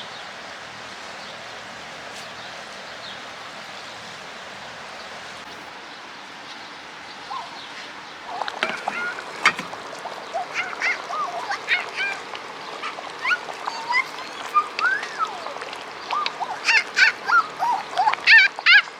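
Farm poultry calling: after a steady background hiss, many short calls begin about eight seconds in and come several a second, growing busier near the end.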